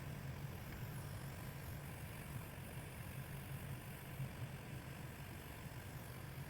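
Steady low rumble with a hiss over it, flickering slightly in loudness: a handheld gas torch flame burning while metal parts are heat-blued.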